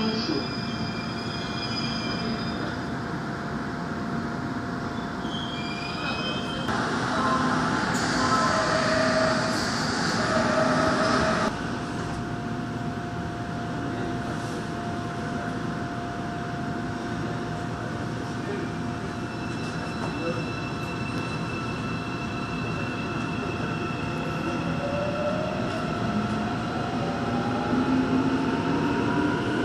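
Daegu Metro Line 2 subway train squealing as it slows into a station, then standing with a steady electrical hum, with a few seconds of louder noise partway through. Near the end the traction motors' whine rises steadily in pitch as the train pulls away.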